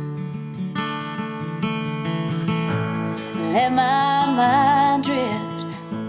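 Background song: acoustic guitar picking softly, joined about halfway by a voice holding long, wavering notes without words.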